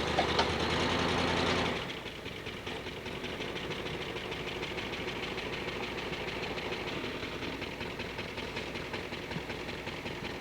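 Jeep Cherokee engine working under load as it drags a log up on a cable. About two seconds in the load drops off sharply and it settles to a quieter steady idle, the pull having stalled short.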